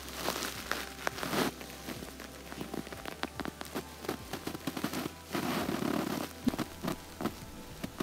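Hands working on the dishwasher's circulation pump: scattered light clicks and ticks of parts and tools being handled, with a brief rustle about five and a half seconds in.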